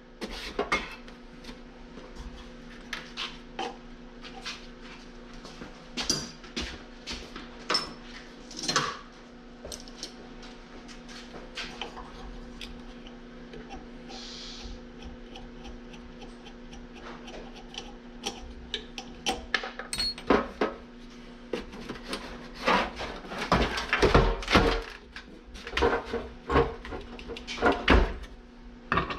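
Scattered metallic clicks, knocks and clatter as the electric fan motor is worked loose from an air conditioner's sheet-metal housing during a scrap teardown. The clatter is busiest near the end, over a steady low hum.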